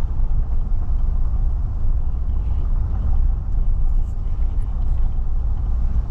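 Steady low rumble of a car driving along a brick-paved street, heard from inside the cabin: road and tyre noise with the engine running underneath.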